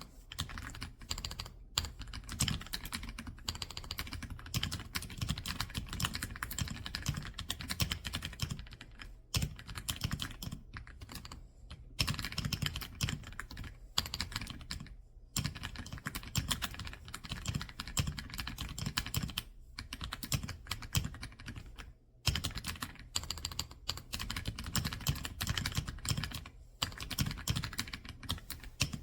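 Fast, continuous typing on an EPOMAKER x Aula F99 gasket-mount mechanical keyboard with Graywood V3 switches: a dense run of key clacks with a few brief pauses.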